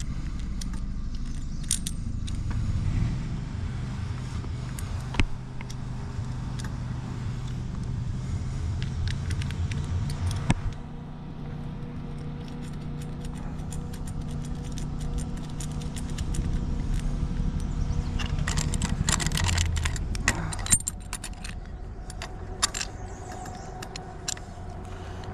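Metal bolts and fittings clinking against a metal antenna mounting plate as the first bolts are fitted, with single clicks now and then and a quick run of clinks about three-quarters of the way through. A steady low rumble runs underneath.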